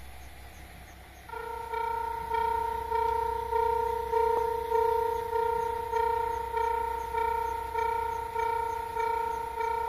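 Japanese railway level-crossing alarm starts about a second in: an electronic bell dinging over and over, a little under twice a second, warning that a train is approaching. A low hum runs underneath.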